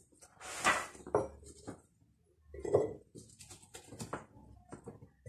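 Small pickling cucumbers (gherkins) being packed into an empty glass jar: a string of irregular knocks and clinks as the cucumbers strike the glass, with the scrape of cucumbers being picked from a plastic bowl.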